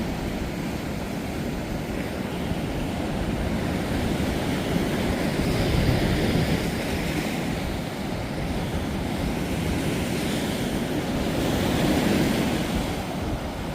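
High sea surf breaking and washing up on the beach, a continuous rush that swells with the incoming waves about halfway through and again near the end, over a low rumble.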